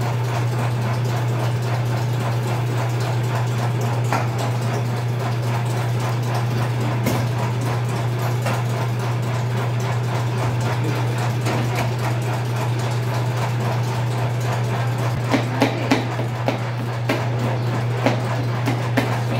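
A steady low machine hum runs throughout. In the last few seconds a spoon knocks and scrapes several times against the sides of a mixing bowl of cake batter.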